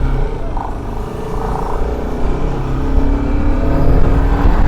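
Bajaj Pulsar RS 200 motorcycle riding at speed: its single-cylinder engine running under heavy wind rush on the rider's microphone, growing louder about two seconds in.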